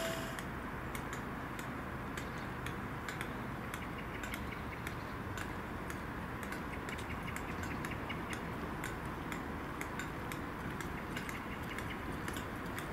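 Steady low background rumble with many faint, irregular light ticks and clicks.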